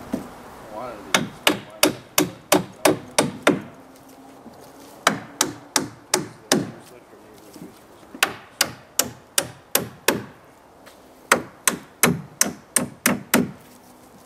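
A hand hammer driving nails into wood with steady, evenly spaced blows, about three a second, in four runs of six to eight strikes with short pauses between runs.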